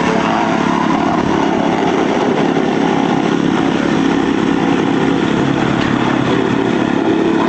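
Engine of road-repair machinery running steadily at a constant level, with a continuous mechanical hum.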